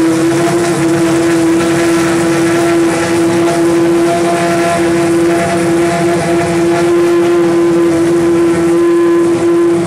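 Boss GP single-seater racing car engine held at steady, raised revs during its warm-up, a loud, even, high-pitched drone that does not rise or fall.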